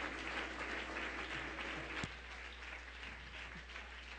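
Congregation applauding, the clapping slowly dying down, with one sharp knock about two seconds in.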